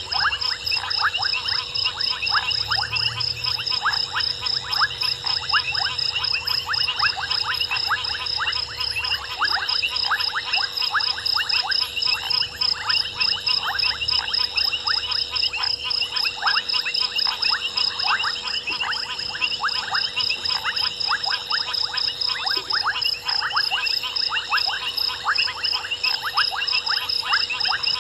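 Night chorus of frogs: dense, rapid clicking calls overlapping continuously, over a steady, fast-pulsing high insect trill.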